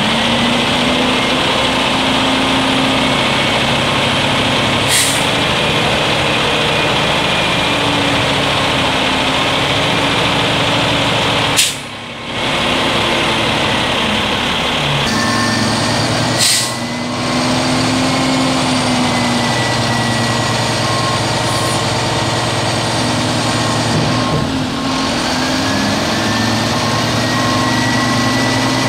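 2016 Mack MRU613 front-load garbage truck's engine running under hydraulic load while the front lift arms are lowered and raised, its pitch rising and falling as the arms work. A thin steady whine is present in the second half, and a few short sharp sounds come through, the loudest about twelve seconds in.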